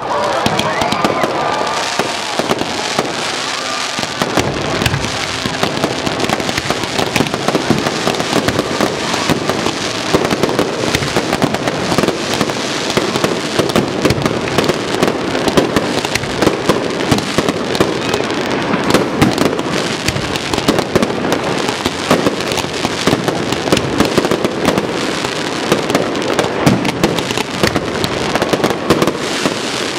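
Aerial fireworks display: a dense, continuous run of pops and bangs from bursting shells and their crackling sparks, which thickens about four seconds in.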